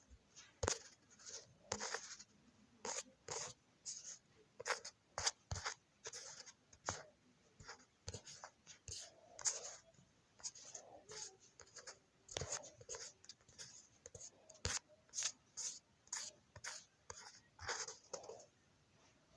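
Irregular light taps and clicks, about one to two a second, with short scratchy strokes among them.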